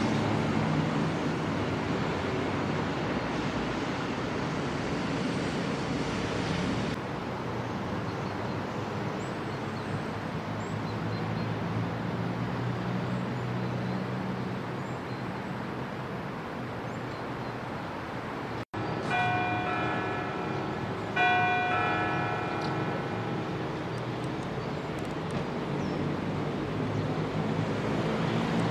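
A steady rushing background with a low hum that breaks off abruptly, followed by two church bell strikes about two seconds apart, each ringing out and fading.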